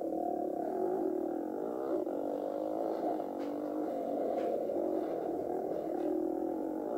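Small 150cc dirt bike engine revving up and down as it is ridden, its pitch rising and falling with throttle and gear changes, sounding muffled from the rider's helmet.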